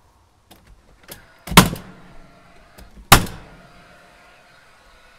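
Two loud sharp nailing strikes into wooden trim around a coop vent, about a second and a half apart, with a few lighter taps around them.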